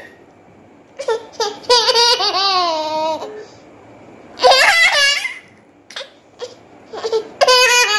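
A toddler girl laughing in high-pitched, giggling bursts: a short one about a second in, a longer run just after, another in the middle and a fresh one near the end, with brief pauses between.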